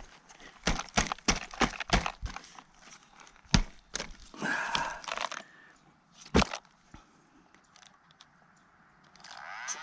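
Irregular sharp clicks and cracks of hands and a tool picking at a rock jammed in the steering servo area of an Arrma Outcast RC truck, with a short scraping rustle about halfway. Music fades in near the end.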